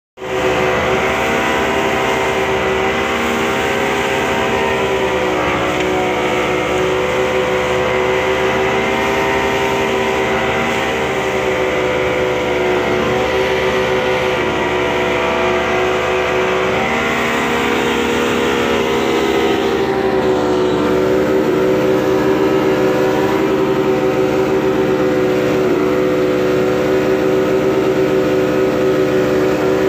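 Yamaha Enduro two-stroke outboard motors running steadily at speed, held at about a quarter throttle, over the rush of spray and water against an inflatable boat's hull.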